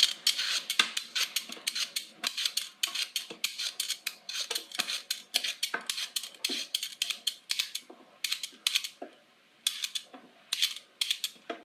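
Vegetable peeler scraping peel off a vegetable in quick repeated strokes, about four a second, with a short pause about nine seconds in.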